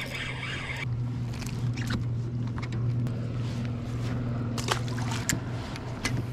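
Pedal-drive fishing kayak moving on the water: a steady low hum, with scattered small splashes and clicks.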